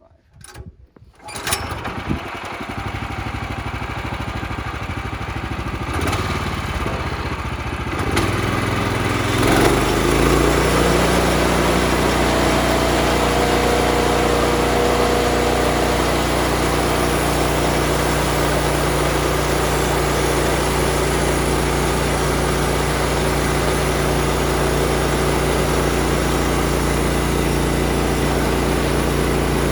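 Small gasoline engine of a portable sawmill starting about a second and a half in, then picking up speed in steps and settling into a steady fast run.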